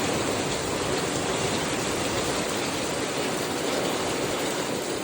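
Rain falling steadily in a thunderstorm, a dense, even hiss with no breaks.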